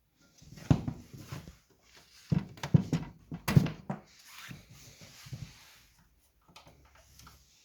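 Irregular clicks, knocks and rubbing of objects being handled on a hard surface, with the sharpest knocks clustered near the middle and lighter ticks near the end.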